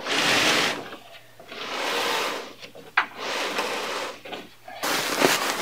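Wooden platform bed frame on plastic glide pads sliding across carpet, shoved four times, each push a scrape about a second long, with a few light knocks near the end.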